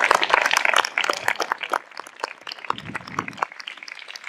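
Audience applauding, the clapping thickest in the first second, then thinning out and dying away.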